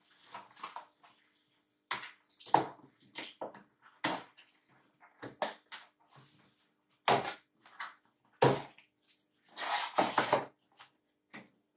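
A cardboard parcel and its packing tape being torn and pried open by hand: irregular bursts of tearing, scraping and rustling, the longest about ten seconds in.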